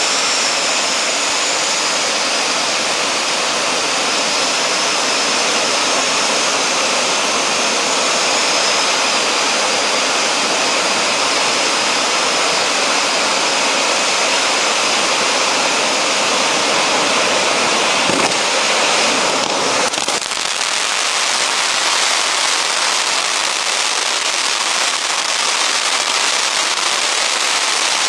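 Li Ji 'Big Peacock' ground fountain firework hissing steadily as it sprays sparks. About twenty seconds in the sound shifts and grows denser, turning to a rough crackling as crackle stars fill the spray.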